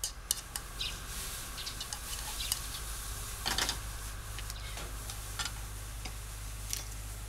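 Kitchen handling sounds: light clicks and taps of wooden chopsticks against a frying pan and a plastic bento box, the most at about three and a half seconds in, over a steady hiss and low hum.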